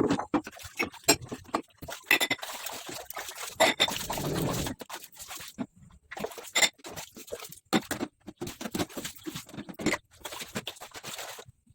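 Irregular clatter and knocking of household items being handled and set down during cleaning, with a short stretch of rubbing or scrubbing about four seconds in.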